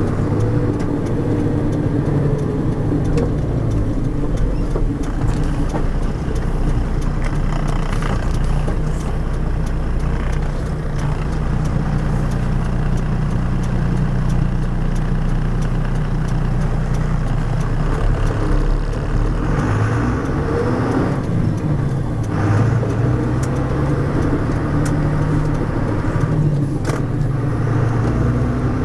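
MAN M39 18ML truck under way: its D0836 six-cylinder diesel running with the Eaton Roadranger manual gearbox singing, the engine note shifting up and down a few times. Under it runs the drone of a differential made awful by lack of maintenance.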